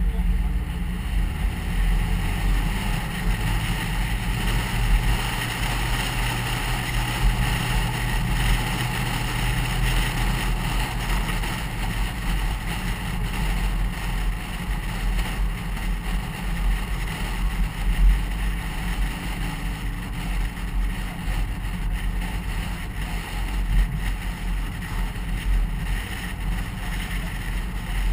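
Car driving along at a steady speed: a low engine drone with tyre rumble and wind noise.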